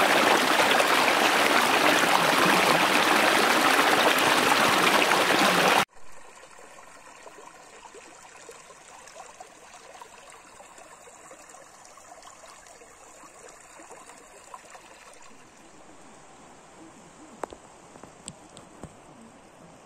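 Rocky stream rushing steadily over stones, loud, then cutting off abruptly about six seconds in to the much quieter trickle of a shallow, slow creek, with a few faint ticks near the end.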